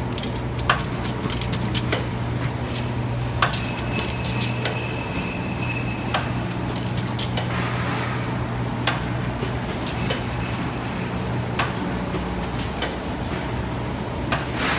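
DPP-80 aluminium-aluminium blister packing machine running: a steady low mechanical hum with a sharp metallic clack about every two and a half to three seconds.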